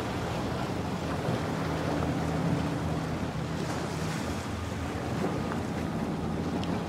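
A boat engine running with a steady low hum, under a hiss of surf and wind buffeting the microphone.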